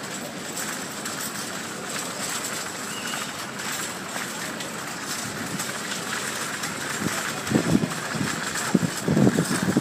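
Steady outdoor city-square ambience with wind noise on the phone microphone, and a few low bumps near the end.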